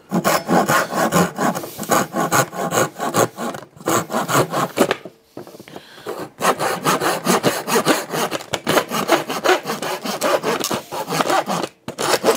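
Hand saw with a coarse, pull-cutting pruning blade sawing through a strip of wood in quick back-and-forth strokes. The strokes pause briefly about five seconds in, then carry on until just before the end.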